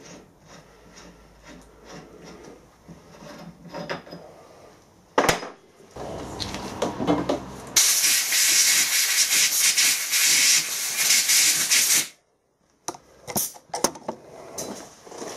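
Hand-tapping at a bench vice: faint metal clicks and scraping as a tap is turned out of a freshly threaded bush, with a sharp knock about five seconds in. Then a loud, steady hiss lasts about four seconds and cuts off suddenly, followed by a few clicks of tools set down on the bench.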